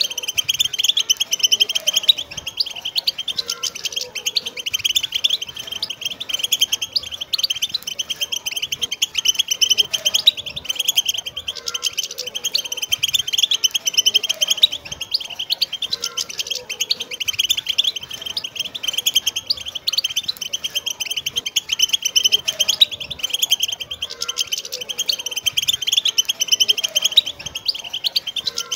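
A group of wild European goldfinches twittering and chattering together: many birds overlapping in a dense, unbroken stream of quick high chirps and trills.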